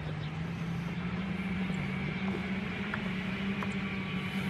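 Steady drone of highway traffic, with a low wavering engine hum running through it.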